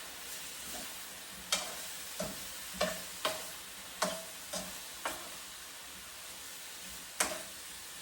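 Pork, carrot and cauliflower sizzling steadily in a frying pan while a utensil stirs them. About eight sharp clinks of the utensil against the pan come at uneven gaps, some with a brief ring.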